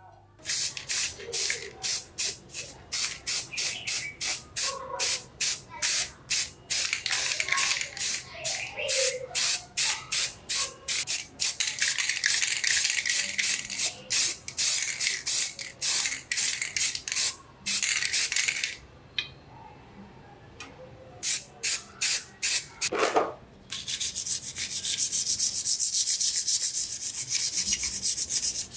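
Hand sanding: abrasive rubbed back and forth over a part in steady scratchy strokes, about three a second. After a brief pause the strokes turn quicker and closer together near the end.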